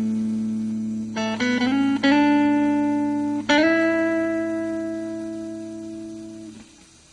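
Guitar through a Marshall MG2FX mini practice amp, playing a clean tone. A ringing chord is followed by a few quickly picked notes, then a chord left to ring and fade until it is muted near the end.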